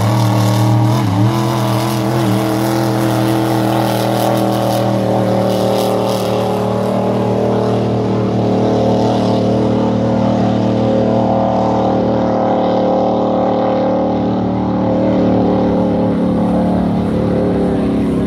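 Supercharged, alcohol-fuelled circuit race boat engine running flat out, a loud steady drone that dips briefly in pitch about a second in. The sound grows duller as the boat runs off into the distance.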